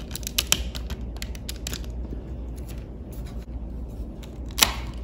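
LEGO plastic bricks being pulled apart and handled: a scattering of light clicks, with one sharper snap about four and a half seconds in.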